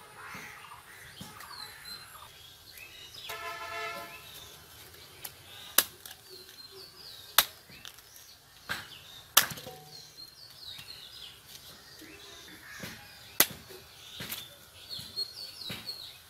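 A large knife striking and cutting into whole palmyra palm fruits (ice apples): about five sharp chops at irregular intervals, with small birds chirping in the background.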